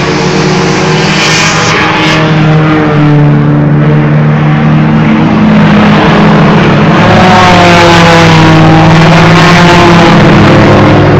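Late model stock cars racing past, several V8 engines loud and continuous, their pitch climbing from about seven seconds in as they accelerate.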